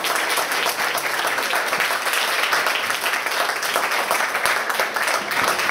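Audience applauding: many people clapping steadily at an even level.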